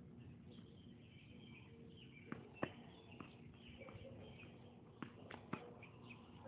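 Faint, sharp pops of a tennis ball being struck and bouncing on the court, in small clusters of two or three, over faint bird chirps.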